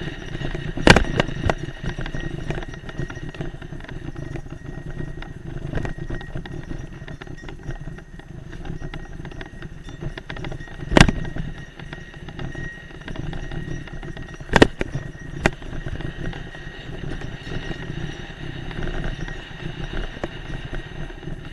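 Mountain bike riding fast down a dry, loose dirt trail: the tyres crunch over the dirt and the bike rattles continuously, with a few sharp knocks from bumps, about a second in, near the middle, and twice a few seconds later.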